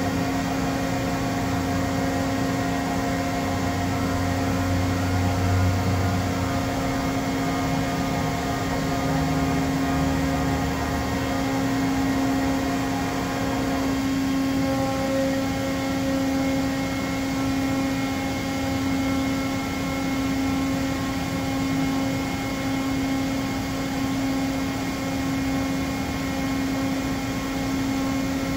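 Doosan DCM 2740 CNC bridge mill running with its axes moving: a steady machine hum made of several held tones from its drives and pumps. The mix of tones shifts about halfway through as the motion changes.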